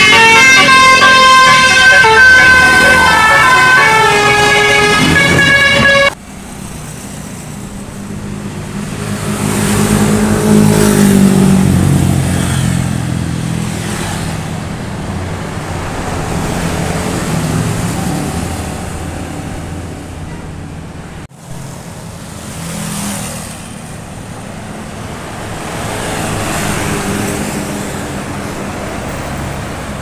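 A coach's telolet multi-tone horn playing a quick tune of stepped notes, which stops abruptly about six seconds in. Then coach buses passing with road traffic, one engine swelling and falling away around ten seconds in.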